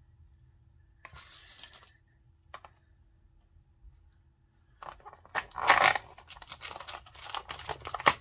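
A brief rustle about a second in, then from about five seconds in a dense run of tearing and crinkling as a cardboard door of a paper advent calendar is torn open and the plastic packet inside is pulled out.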